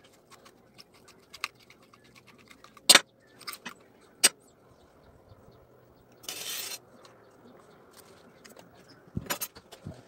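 Pliers and the metal parts of a small DC motor clicking and clinking as it is taken apart by hand. A loud sharp click comes about three seconds in and another just after four, with a short scraping rasp about six seconds in.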